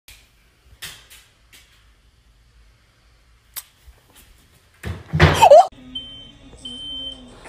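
A few faint taps, then a loud bang about five seconds in. After it a smoke alarm starts sounding, with two long high-pitched beeps near the end.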